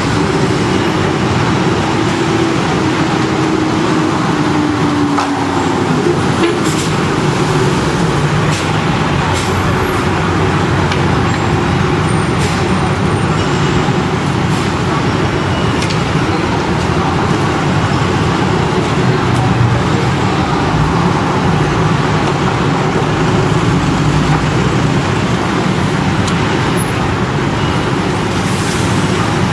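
Heavy city street traffic: a steady din of buses and other motor vehicles, with a low whine from a passing vehicle that falls slightly in pitch over the first six seconds.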